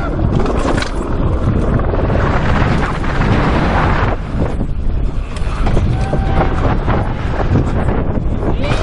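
Wind buffeting an action camera's microphone on a downhill mountain bike at speed, over the steady noise of tyres on loose dirt and rock, with many small knocks and rattles from the bike.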